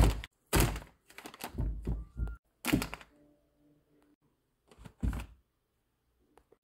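An onion, a garlic bulb and a half lemon set down one at a time on a cutting board on a kitchen counter: a run of dull thunks over the first three seconds, a pause, then two more knocks about five seconds in.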